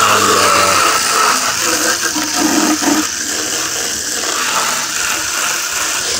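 Garden hose spraying water onto plastic chicken waterers to rinse droppings off them: a steady rush of spray.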